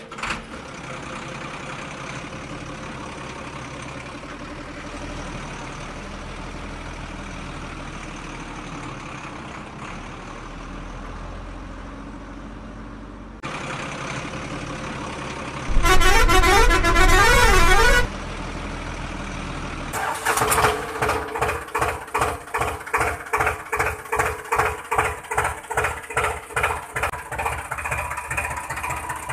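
Dubbed heavy-truck engine sound running steadily, then a loud warbling horn for about two seconds. After that a tractor engine chugs at about two beats a second.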